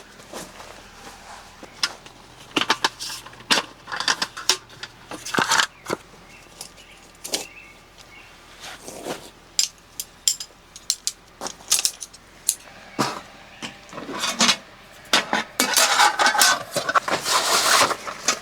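Irregular clicks, clinks and rustles of small objects being handled, growing busier and more continuous near the end.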